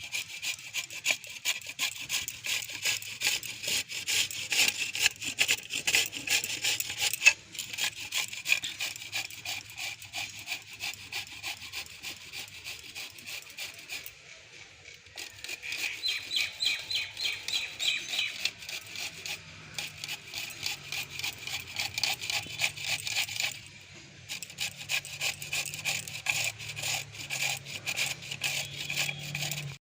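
Carrots being grated on a hand grater: fast, rhythmic rasping strokes, with a couple of short pauses.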